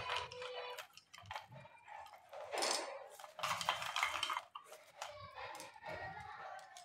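Irregular clatter and rustling of small household items and packaging being handled and sorted.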